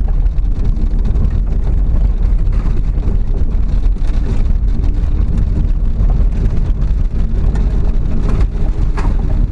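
Vehicle engine running with a steady, loud low rumble of driving on dirt, wind buffeting the microphone.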